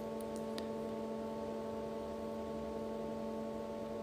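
A steady hum made of several constant tones, with a few faint clicks.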